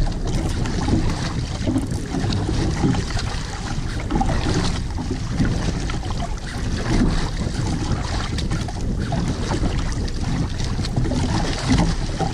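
Choppy sea water splashing and slapping against the hull of a wooden outrigger boat, with wind buffeting the microphone in an irregular low rumble.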